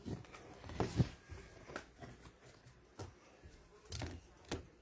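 A few light taps and soft rustles of trading cards being handled and set down on a table.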